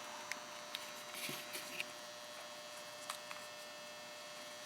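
Faint steady electrical hum in a quiet room, with a few light clicks from the wiring being handled.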